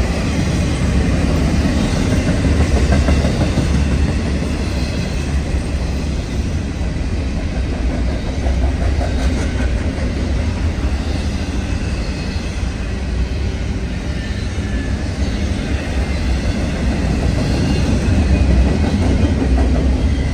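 CN freight train rolling past at track side: a steady, loud rumble of steel wheels on the rails as the cars go by.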